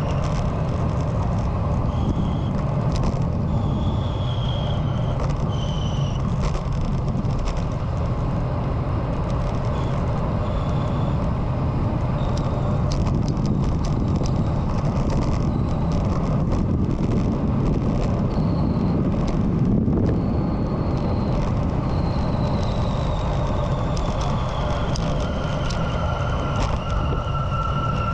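Wind rushing over the microphone and road noise of a rider moving at speed. It is a steady, heavy low rush with a few faint high whistling tones, one of them slowly falling in pitch near the end.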